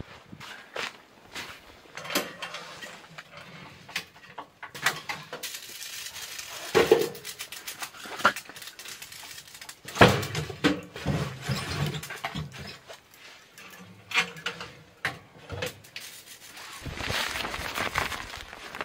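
Handling noises: scattered knocks and scrapes, then, after a sharp knock about ten seconds in, the clatter and metallic clinks of a log being loaded into a small steel tent wood stove through its door. Near the end, tent fabric rustles as the door flap is handled.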